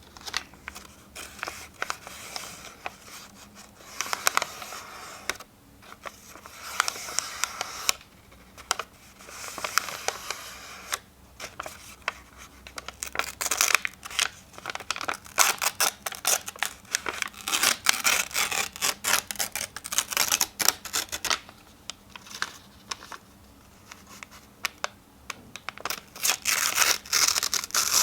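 Sheets of paper being torn by hand: a series of crackling rips and crinkles with short pauses between, the longest and loudest tears coming in the second half.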